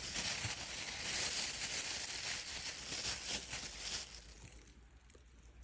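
Continuous crinkling rustle of a plastic snack wrapper being handled, fading out about four seconds in.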